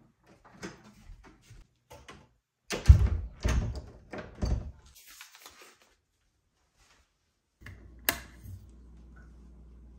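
Interior door with a brass knob being worked: light knob and latch clicks, then a cluster of heavy thumps and knocks about three to five seconds in as the door swings and shuts. Near the end a low steady hum comes in, with one sharp click.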